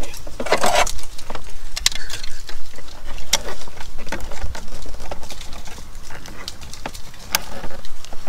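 Irregular clicks, taps and a short scrape of hand work: channel-lock pliers and a hose clamp handled while a coolant hose is worked onto a plastic coolant reservoir.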